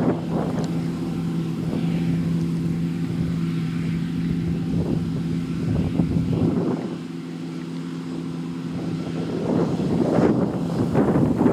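John Deere T560 combine harvester running steadily, a constant engine hum, with gusts of wind on the microphone that grow heavier near the end.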